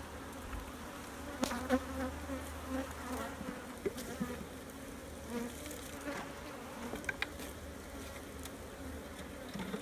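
Honeybees buzzing around an open hive, a steady hum, with a few short wooden clicks and knocks as hive frames are shifted and lifted in the box.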